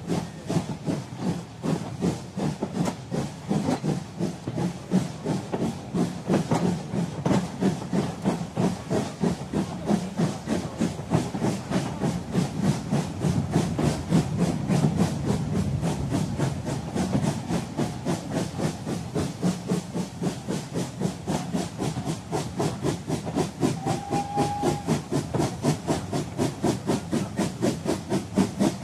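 Steam locomotive chuffing in a rapid, even rhythm with hiss as the train runs, with a brief high tone near the end.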